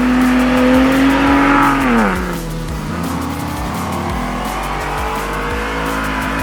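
An off-road truck's engine running at high revs in sand, the revs falling off sharply about two seconds in, then building again toward the end.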